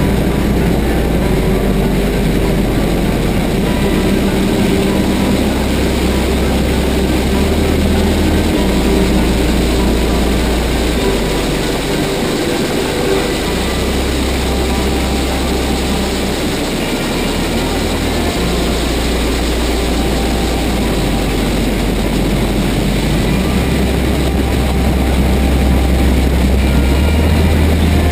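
Race car engine running hard at racing speed, heard from an onboard camera in an open cockpit, with heavy wind roar over the microphone.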